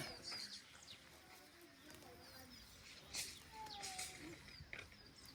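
Faint scattered chirps and short whistled calls of small birds, with a couple of soft knocks about three seconds in.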